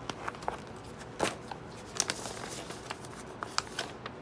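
Hands handling merchandise and its packaging: irregular light clicks and rustles, with a couple of sharper clicks about a second and two seconds in.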